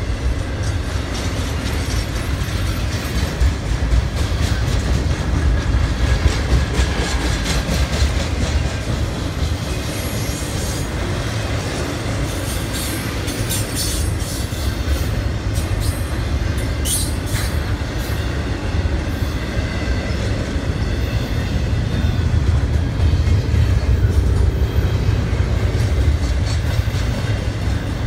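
Freight train's cars rolling past, a steady rumble with wheels clacking over the rail joints and brief faint wheel squeal about halfway through.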